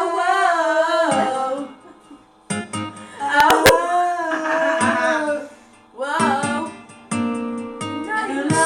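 A voice singing held, wavering notes over strummed acoustic guitar, in phrases with short breaks between them.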